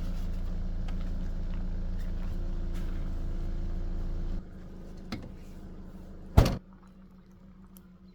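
A vehicle engine idling with a steady low rumble that stops about halfway through, then a car door slams shut once.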